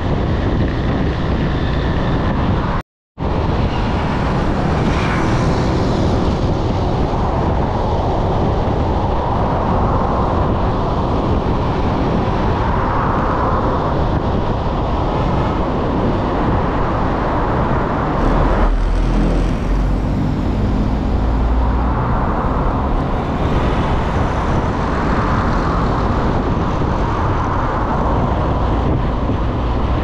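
Steady rush of wind on the microphone mixed with the road and traffic noise of a vehicle driving through city traffic. The sound drops out completely for a moment about three seconds in, and a deeper rumble swells for a few seconds past the middle.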